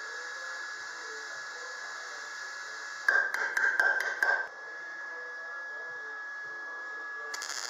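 Hammer tapping a tack-welded steel patch panel on a classic Mini's inner wing, a quick run of about five metal-on-metal strikes about three seconds in, knocking the patch flush before it is fully welded.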